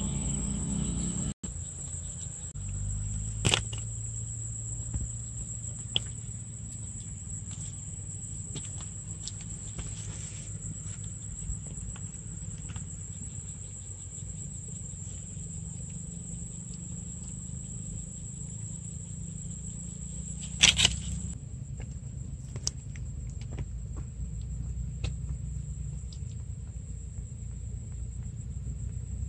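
Insects trilling in one steady high tone over a low rumble, with a brief dropout about a second in and a few sharp knocks, the loudest about three and a half seconds in and near twenty-one seconds.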